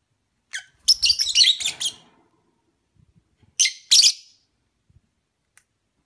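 Budgerigars chirping and chattering in two short bouts of quick, high calls, one about a second in and another near the four-second mark.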